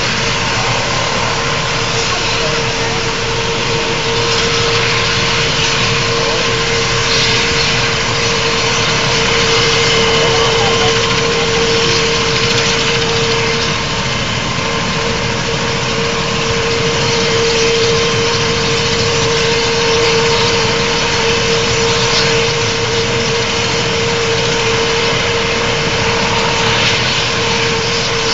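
Mil Mi-24V helicopter's two turboshaft engines and rotor running steadily on the ground before lift-off: a constant whine over a loud, even rushing noise.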